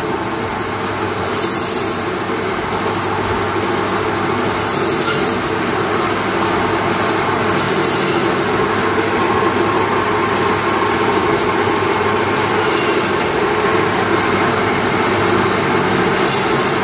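Butcher's meat band saw running steadily while it cuts chops from a bone-in lamb forequarter, the blade passing through meat and bone.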